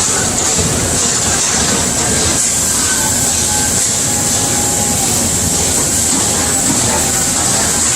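Amada AC255NT CNC turret punch press running, a fast, steady mechanical clatter of rapid repeated strokes with a steady high hiss beneath.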